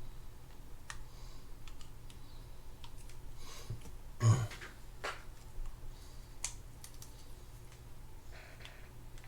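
Irregular small clicks and taps of a screwdriver and metal fishing-reel parts being handled, with one louder knock a little over four seconds in.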